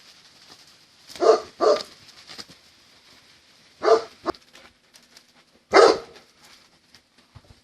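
A dog barking: four barks, the first two in quick succession, then one a little before the middle and a longer one near the end.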